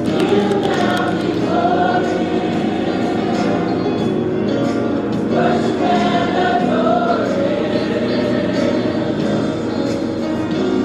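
Background music: a choir singing a slow gospel-style piece in long, held notes.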